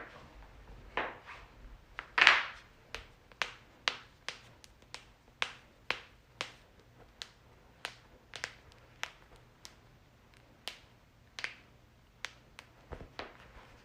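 Joints cracking: a long run of sharp separate pops, one or two a second with uneven gaps, the loudest about two seconds in.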